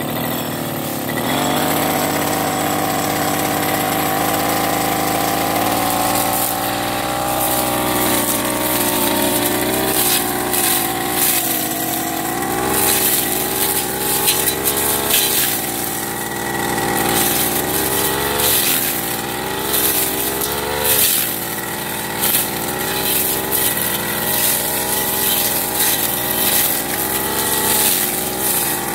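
Backpack brush cutter's petrol engine revving up about a second in and then running at high speed, its pitch dipping briefly now and then as the blade takes the load, while the spinning metal blade cuts through cogon grass with a scattered crackle.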